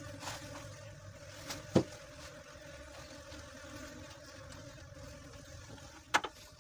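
Steady low mechanical hum, like a motor running, with two sharp knocks, one a little under two seconds in and a louder one near the end.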